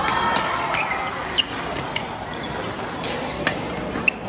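Badminton rally: about four sharp racket strikes on the shuttlecock, with short squeaks of shoes on the court floor, over the steady hum of voices in a large hall.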